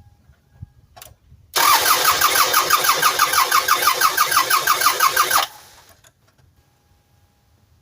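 A 1999 Toyota Sienna's 3.0-litre V6 cranked over on the starter for about four seconds without starting, an even, rapid beat that stops abruptly. This is a compression test on cylinder number 2, which reads only about 5 psi: low compression that the owner puts down to a bad valve.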